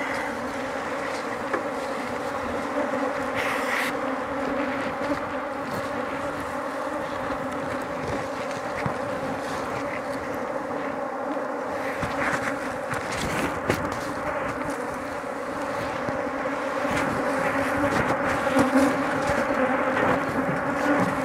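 A mass of honey bees flying and buzzing in a steady, dense, loud hum around hives being worked for the honey harvest, with a few light knocks here and there.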